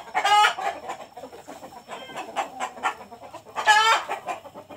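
Crossbred KUB × Bangkok kampung chickens giving two loud, short squawking calls, one right at the start and one about three and a half seconds in, with softer clucking between.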